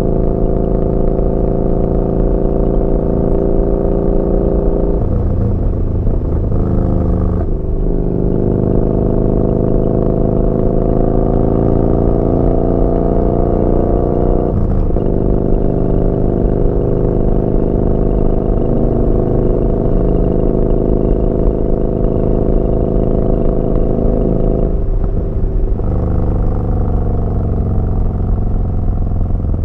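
Yamaha Bolt's 942 cc air-cooled V-twin running through a Vance & Hines slip-on exhaust while riding, a loud steady exhaust note. The pitch drops and climbs back three times, about five seconds in, about fifteen seconds in and near the end.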